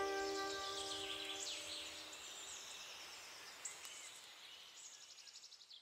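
A held music chord fades out in the first second and a half. Faint high chirps, falling whistles and quick trills of birds follow, and they fade away steadily toward the end.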